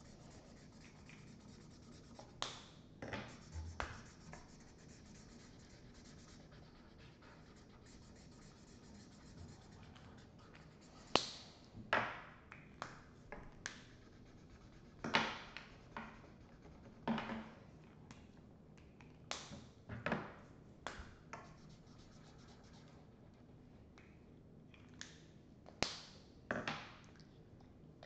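Markers scratching on paper in short, irregular strokes, some sharper and louder than others, over a quiet room background.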